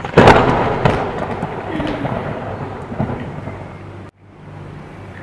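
Thunderclap sound effect: a sudden loud crack followed by a rolling rumble that fades over about four seconds, then cuts off abruptly.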